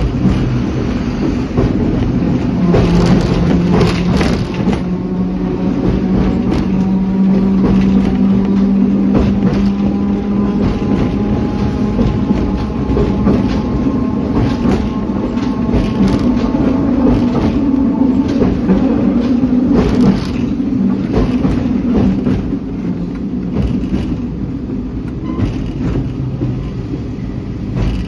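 Hong Kong double-decker electric tram running along its street track, heard from on board. A steady hum from the drive has pitch that drifts slightly with speed, over the rumble of the wheels, with frequent clicks and rattles from the wheels on the rails.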